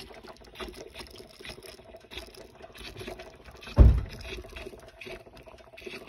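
Overheated lead-acid car battery boiling, a steady crackle of many tiny pops and bubbling, with one low thump nearly four seconds in. The owner takes the boiling for the battery being overcharged by the alternator.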